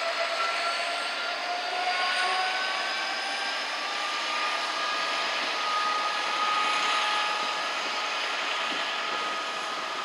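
Class 66 diesel locomotive's two-stroke V12 engine working as it hauls a container train, its whine rising slowly in pitch.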